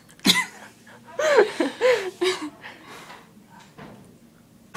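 A person's voice making a short, sharp throaty burst about a third of a second in. About a second in come three or four short vocal noises whose pitch rises and falls.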